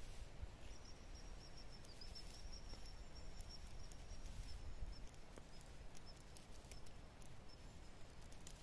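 Quiet outdoor ambience: a low rumble, scattered light clicks, and a thin high steady whistle that lasts about five seconds, starting just after the beginning.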